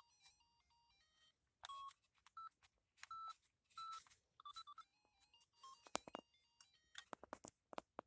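Toy flip phone giving short electronic beeps and little runs of stepped tones as its buttons are pressed, with sharp plastic button clicks among them, thickest near the end. The tones are faint, which the owner puts down to dead batteries.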